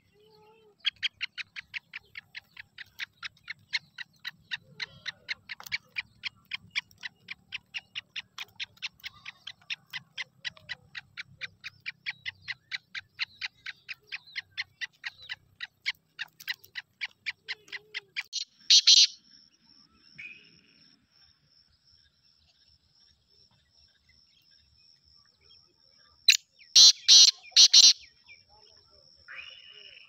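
Caged black francolin calling: a long run of quick, even chirps, about four a second, then a single loud harsh call. Later comes a loud burst of several harsh notes, and a faint steady high whine runs between them.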